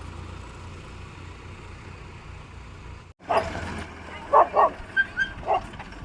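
A diesel engine running steadily with a low rumble, then after an abrupt cut a dog barking about five times in quick, short barks over the engine's hum.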